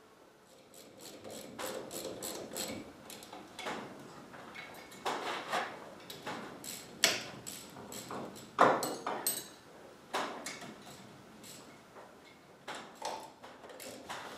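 Hand tools and metal parts knocking, clicking and scraping in an irregular run while an engine is worked onto its mount, with the sharpest knocks about halfway through.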